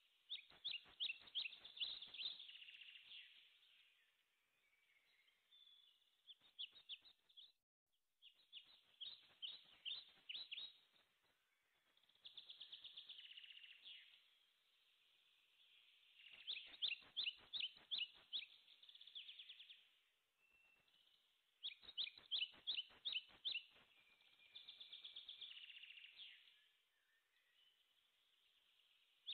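Songbirds singing: phrases of rapid, high chirps a few seconds long, repeated with short pauses between.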